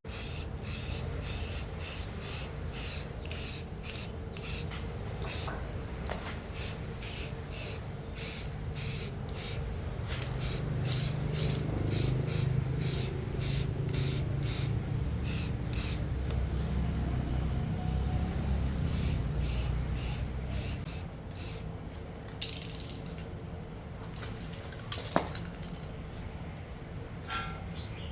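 Short bursts of pressurised spray hissing, about two a second, over a steady low hum; the bursts thin out to a few scattered ones after about twenty seconds, and a sharp click sounds near the end.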